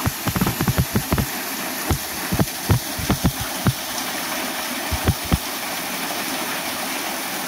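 Small waterfall splashing steadily down a rock face, with a series of irregular low thumps over it that stop about five seconds in.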